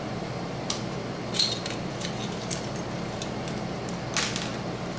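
A few light clicks and taps of the plastic parts of an Xbox 360 controller being handled and pulled apart, the loudest near the end, over a steady low hum.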